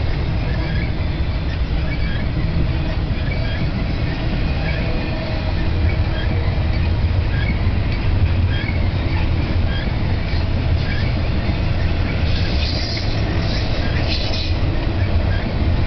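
Double-stack intermodal well cars rolling past: a steady, loud rumble of steel wheels on the rails. Near the end there is a brief stretch of higher-pitched wheel squeal.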